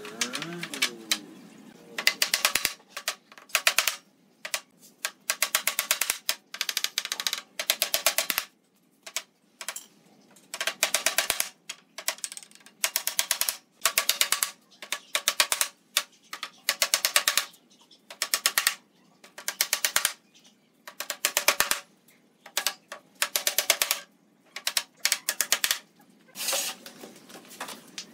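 Cordless impact driver driving screws into pallet wood: dozens of short rattling bursts, one per screw, with brief pauses between them while it is moved to the next screw.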